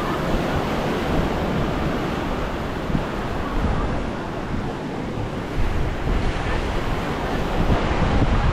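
Small waves washing onto a sandy beach, with wind buffeting the microphone; the low wind rumble gets stronger about two-thirds of the way in.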